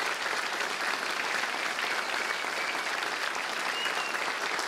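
Theatre audience applauding steadily, dense clapping from a large seated crowd.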